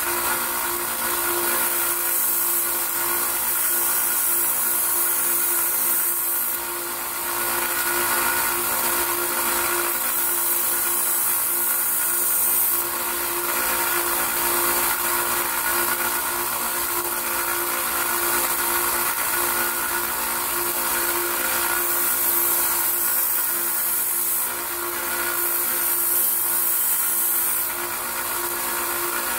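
Harbor Freight 1x30 belt sander running steadily with a constant motor hum while a hatchet's edge is ground on the belt. The grinding hiss grows and eases over stretches of a few seconds.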